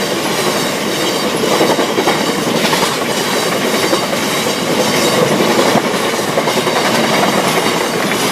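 Freight train behind Class 66 diesel locomotive 66024 passing close by, its wheels clattering steadily on the rails.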